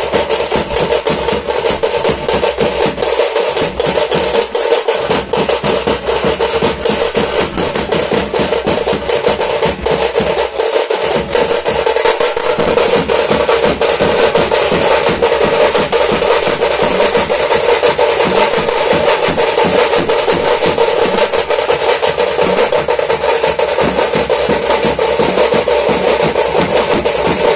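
A Tamil periya melam drum ensemble: several large double-headed drums beaten with sticks, together with a thappattai frame drum, playing a fast, dense, continuous rhythm. The drumming gets slightly louder about halfway through.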